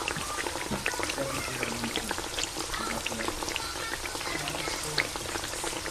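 Ground turkey and onion sizzling in a frying pan: a steady crackle with many small irregular pops.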